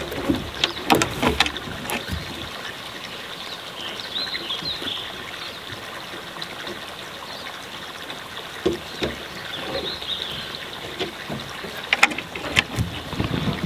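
Outdoor ambience: a steady rush like running water, with small wild birds chirping over it. A few sharp knocks come near the start and again near the end.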